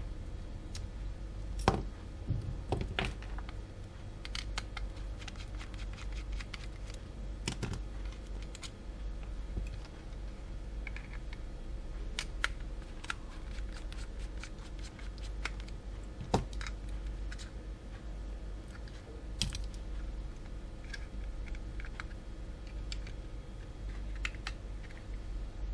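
Scattered clicks and taps of a Pro'sKit battery-operated soldering iron's plastic housing and its small screws as it is unscrewed and taken apart with a small screwdriver, over a steady low hum.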